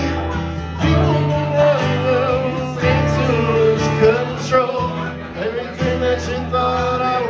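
A man singing with a strummed acoustic guitar, a solo acoustic rock song cover. The voice holds and bends long notes over the guitar chords.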